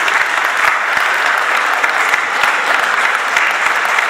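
An audience applauding steadily, many hands clapping together in a dense patter.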